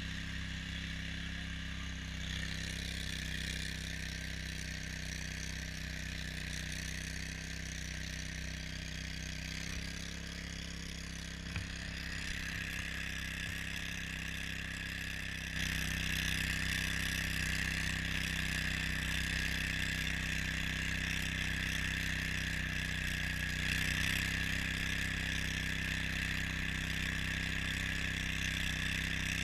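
Argo off-road vehicle's engine running steadily under way, with a steady hiss of track and snow noise over it. It gets louder and brighter about halfway through.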